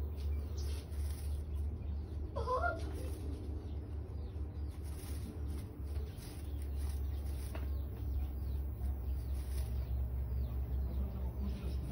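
Dry hay rustling and crackling as a Serama hen picks at and shifts the straw of her nest box after laying, with one short clucking call about two and a half seconds in. A steady low rumble runs underneath.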